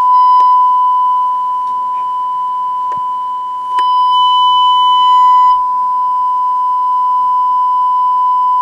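Sony Betacam SP camera's steady high-pitched reference test tone, the audio that goes with its colour bar signal. A few sharp clicks sound, and a second, higher beeping tone joins it for about two seconds near the middle.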